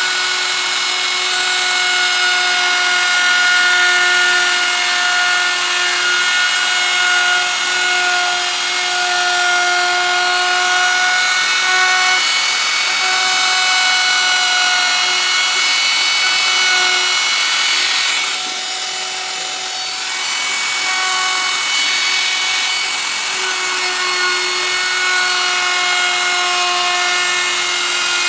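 Hand-held plunge router running at full speed, its bit cutting a carved flower pattern into a wooden board. It makes a steady high whine that eases off briefly about two-thirds of the way through, then comes back.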